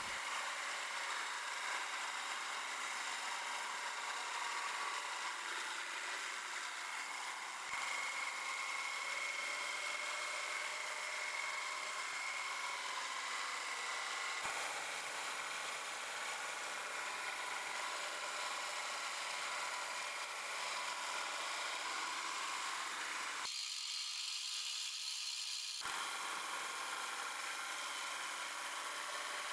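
CNC-converted Sieg X1 mini mill with a brushed spindle motor running at about 750 RPM, its small end mill cutting aluminium plate: a steady machining noise with a faint whine. It changes abruptly a few times, and near the end the deeper part drops out for a couple of seconds.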